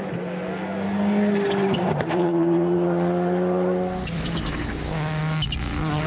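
Rally car engine revving hard as it accelerates, its pitch climbing, dropping sharply at a gear change about two seconds in, then climbing again. About four seconds in the sound cuts to a second rally car, a Toyota GR Yaris Rally1, revving and shifting as it passes close by.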